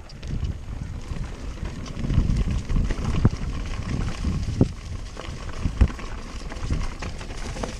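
Downhill mountain bike descending a rough trail: a steady low rumble of riding over the ground, with sharp knocks from the bike about three times, near the middle.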